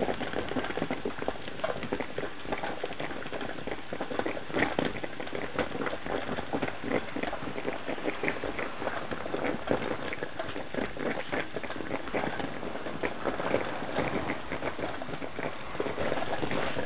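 Metal stovetop coffee percolator perking on the burner: a steady, dense crackle of bubbling and popping.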